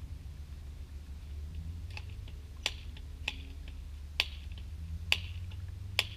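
Airsoft BB gun firing: five sharp snaps, each under a second apart, starting a little before halfway through, over a low steady hum.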